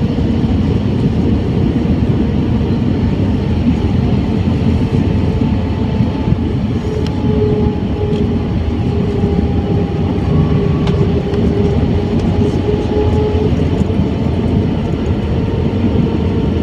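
Airbus A320 cabin noise during the descent to land: a steady, loud rush of airflow and jet engine noise, with a faint engine tone that drifts slightly lower in pitch about midway.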